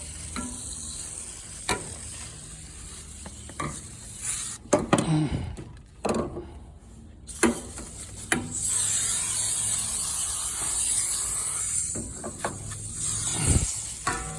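Aerosol can of foaming coil cleaner spraying onto an air conditioner's outdoor condenser coils: a steady high hiss for about three seconds past the middle, with scattered knocks and clicks from handling.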